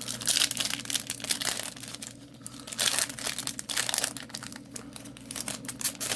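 Foil wrapper of a Yu-Gi-Oh booster pack crinkling and tearing as it is ripped open by hand, in a dense run of irregular crackles.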